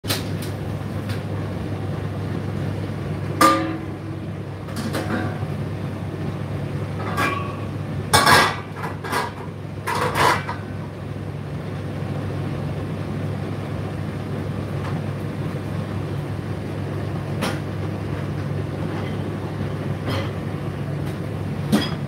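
Indesit IDC8T3 condenser tumble dryer running mid-cycle: a steady low motor-and-drum hum, with irregular knocks and clatters from inside, loudest in a cluster about eight to ten seconds in.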